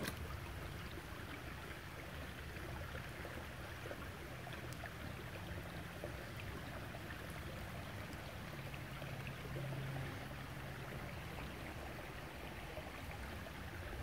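Shallow creek water running steadily over rocks.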